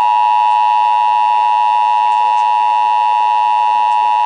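Emergency Alert System two-tone attention signal: two steady tones sounding together without a break, loud and unwavering. It is the alert signal that opens an emergency broadcast, here a statewide required monthly test.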